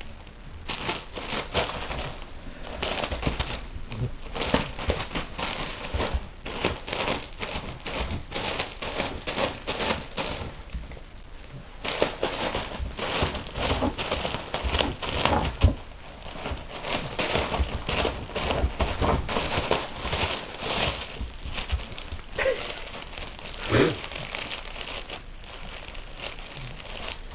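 Wrapping paper crinkling and tearing as a present is unwrapped, in rapid irregular rustles that thin out near the end.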